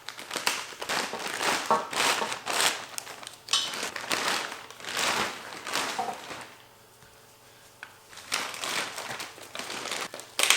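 Packing wrap crinkling and rustling in repeated bursts as it is pulled off a new roll cage, pausing briefly about two-thirds of the way through before starting again.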